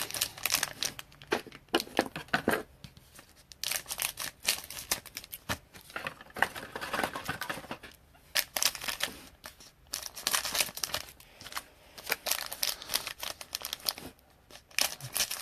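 Foil trading-card pack wrappers being torn open and crinkled, with irregular crackling and rustling that stops briefly a few times.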